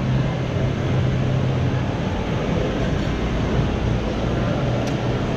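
Steady background din of a busy indoor shopping arcade, with a low hum that fades about two seconds in.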